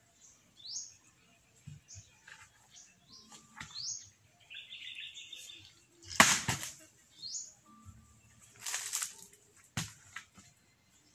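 A heavy chopping blade strikes a coconut with one loud whack about six seconds in and a smaller knock near the end, with a short rasp between them. Birds chirp short rising calls throughout.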